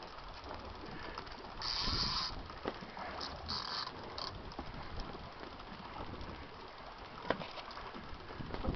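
Fishing reel ratcheting in short bursts while a hooked mahi-mahi is fought, loudest about two seconds in and again around three and a half seconds.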